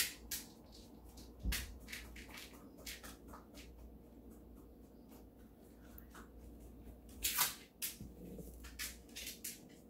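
Diamond-painting drill pen picking up and pressing resin drills onto the canvas: scattered small clicks and taps, a louder cluster a little past seven seconds, over a faint low hum.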